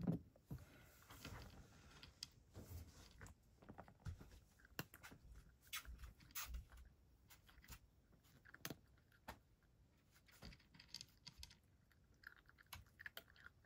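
Cat eating dry kibble: faint, irregular crunches and clicks as it chews.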